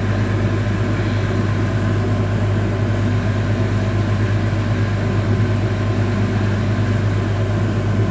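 Excavator engine running steadily with a constant low drone that holds the same pitch throughout.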